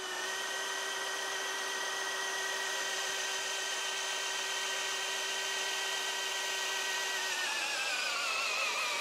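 DeWalt cordless hammer drill driving a large wood auger bit into a log: a steady motor whine that, about seven seconds in, drops in pitch and wavers as the drill bogs down under the load. The bit does not quite get all the way in.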